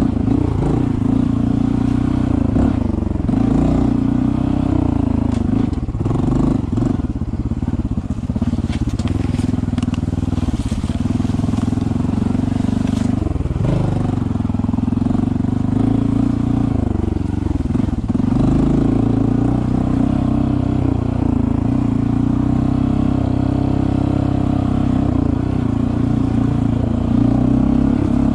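Honda CT125 Trail's single-cylinder engine running as the bike is ridden slowly along the trail, its revs rising and falling with the throttle. Scattered clicks and knocks sound about eight to eleven seconds in.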